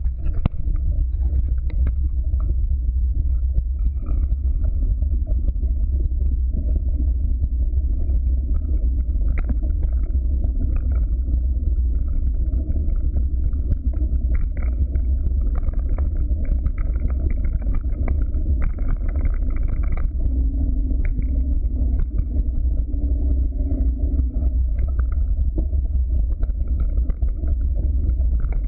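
Steady low wind rumble on a mountain bike's handlebar-mounted camera during a fast descent of a dirt trail, with scattered knocks and rattles from the bike jolting over the ground.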